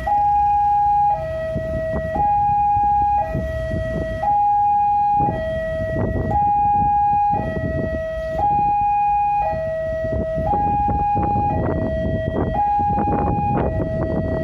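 Railway level-crossing warning alarm sounding a two-tone electronic signal that alternates high and low about once a second, warning of an approaching train as the barrier comes down. A rumble of waiting road traffic runs underneath.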